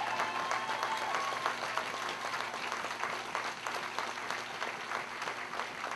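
Crowd applauding, many hands clapping, tapering off slightly near the end.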